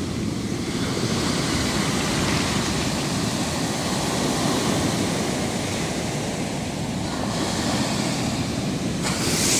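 Sea surf breaking and washing up a sandy beach in the wind: a steady rushing hiss, with a louder rush of a breaking wave near the end.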